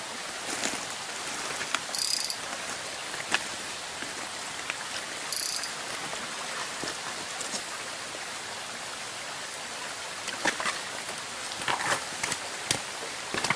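Steady hiss of rain and a small mountain stream, with scattered light taps throughout and two brief high hisses about two and five seconds in.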